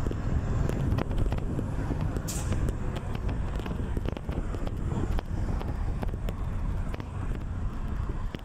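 Steady low rumble of a vintage bus in motion, heard from inside, with frequent rattles and knocks and a brief hiss about two seconds in.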